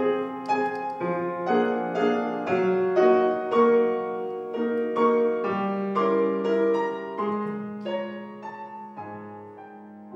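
Solo piano playing a classical piece, single notes over held chords, growing steadily quieter over the last few seconds.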